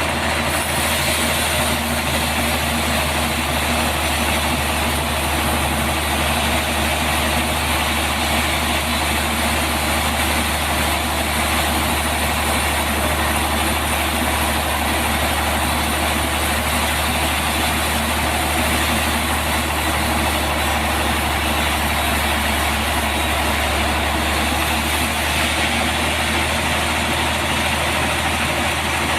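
Sawmill running steadily, a constant low engine hum under a broad mechanical noise.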